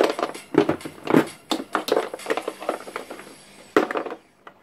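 Hard plastic knocking and clattering as a Milwaukee M12 charger and battery pack are handled and set into their moulded plastic carry case, in irregular knocks with one sharper knock near the end.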